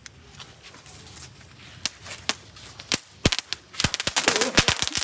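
A packet of small firecrackers: the lit fuse fizzes faintly with a few stray crackles, then about three seconds in the packet goes off in a fast, irregular string of sharp bangs and pops.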